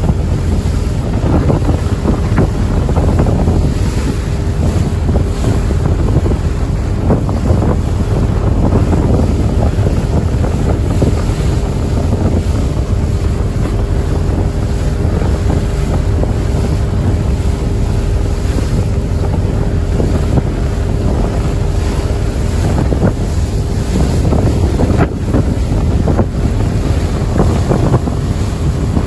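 Car ferry under way on open sea: a steady low engine drone with a faint hum held at one pitch, water rushing past the hull, and wind buffeting the microphone in gusts.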